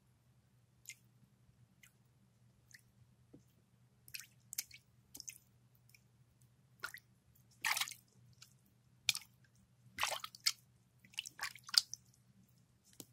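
Fingers squishing and poking water in a small container: short, irregular wet squelches and drips, sparse at first, then louder and more frequent in the second half.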